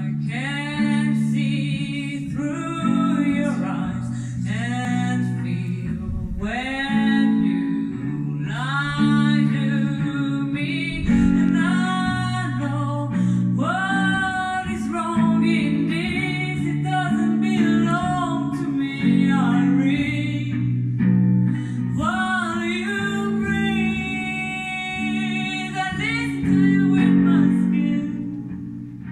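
Live song: a woman singing into a microphone over guitar accompaniment. Her voice stops near the end, leaving the guitar playing on.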